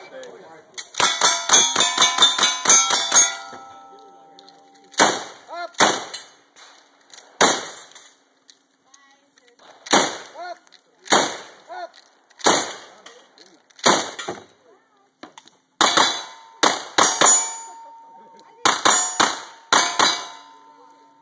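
Shots from a lever-action rifle and a single-action revolver, each answered by the ring of a steel target being hit. A fast string of about ten shots comes first, then single shots spaced about a second apart.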